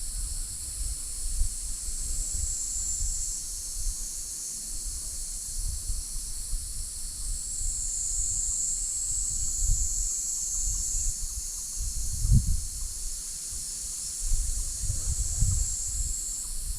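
Insects calling in a steady high hiss-like drone that swells louder three times, with low wind rumble on the microphone underneath.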